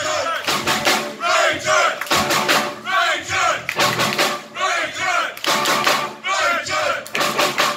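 Live rock band, with electric bass, electric guitar and drum kit, playing loudly while voices shout along in a repeated rhythm over the music.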